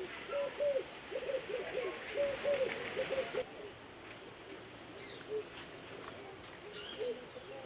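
Birds calling: a quick run of short, low notes in the first three seconds or so, thinning to occasional notes after, with faint higher chirps over them.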